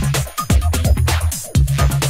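Electronic dance track with a breakbeat drum groove over a heavy bass line, the bass changing note about every half second.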